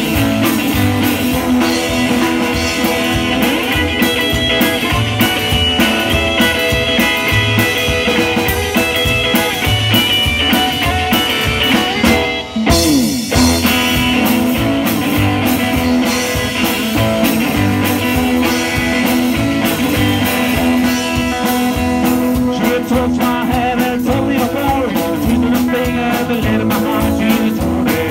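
Live rock and roll band playing through a PA: hollow-body guitar, electric guitar, upright bass and drum kit, with one short break in the music about halfway through.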